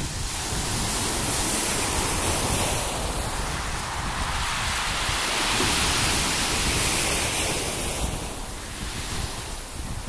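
Storm surf breaking and washing up a pebble beach, with wind buffeting the microphone. The rush of the waves swells about a second in and again from about five to seven seconds, then eases near the end.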